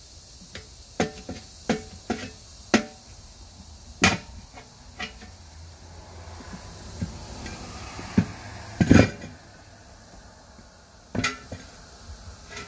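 Metal tire spoon knocking and clanking against a 19.5-inch truck wheel rim as a tire bead is levered over it by hand: a series of sharp metallic knocks, several quick ones in the first three seconds, the loudest about nine seconds in.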